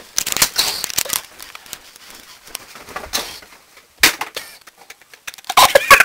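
Scattered rustling, crinkling and knocks of close handling, with a sharp bump about four seconds in and a cluster of louder bumps near the end.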